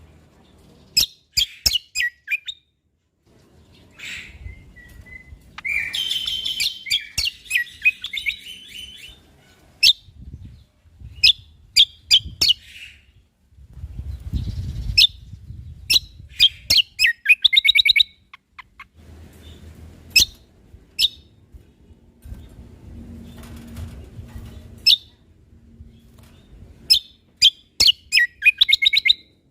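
Cucak kombo (kecial kombok) singing a series of sharp, high chirps broken by several bursts of rapid trilling, with short pauses between phrases.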